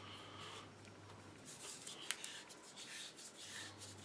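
Faint handling sounds of an airsoft rifle part being screwed on by hand: light rubbing and scraping of parts, with a small sharp click about two seconds in.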